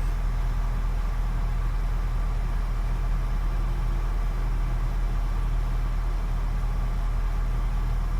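Truck crane's engine running with a steady, even low drone.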